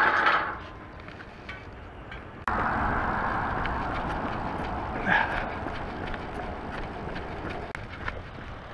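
Steady wind and road noise rushing over the microphone of a bicycle rider's helmet camera while riding along a street. The noise starts suddenly about two and a half seconds in, after a quieter stretch of faint clicks.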